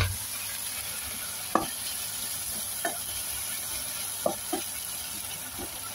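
Cucumber slices and meat sizzling steadily in a frying pan with a splash of water added, while a spatula stirs them, knocking against the pan several times.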